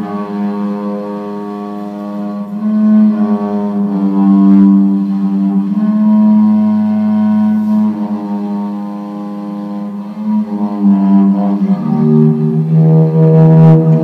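Cello being bowed in a slow melody of long, held notes, stepping down to a lower note about twelve seconds in.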